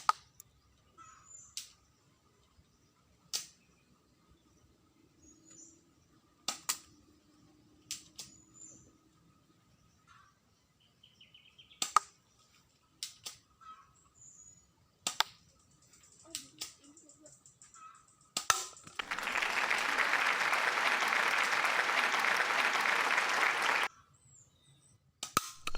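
Spring airsoft Glock 17 replica pistol firing single shots, sharp snaps and clicks a second or two apart, some in quick pairs. Near the end a steady rush of noise lasts about five seconds.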